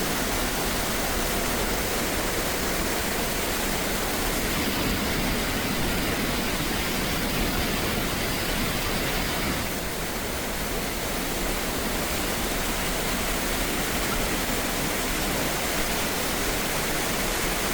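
Floodwater rushing, a steady loud roar of noise without pitch, shifting slightly about ten seconds in.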